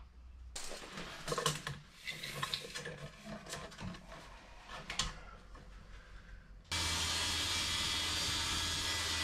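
Knocks and clatter of timber being handled. About two-thirds of the way in, a corded circular saw starts abruptly and runs steadily, cutting through a sheet of OSB board.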